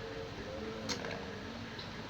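Eating noise from a mukbang of spicy chicken feet, mussels and squid: one sharp click about a second in and a fainter one near the end, over a steady low background hum.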